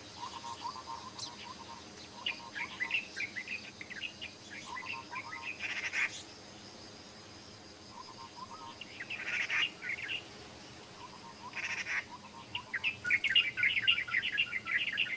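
Wild birds chirping and calling in short bursts of quick notes, busiest near the end, over a faint steady high-pitched hiss.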